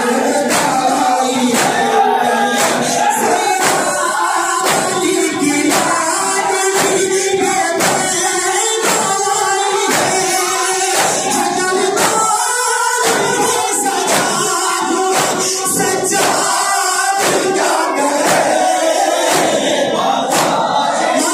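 Men's voices chanting a noha together in chorus over steady rhythmic matam, hands striking chests about twice a second.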